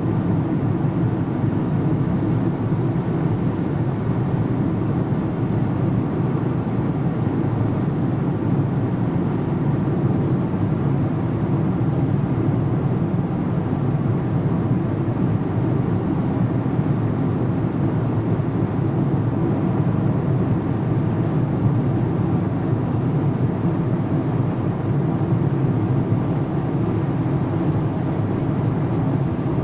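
Steady low rumble of a moving vehicle's road noise.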